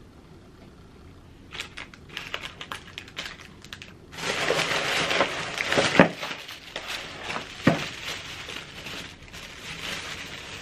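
Plastic wrapping crinkling as it is handled. It starts lightly after a quiet moment, gets loudest and densest about four to six seconds in, and has a couple of sharp snaps.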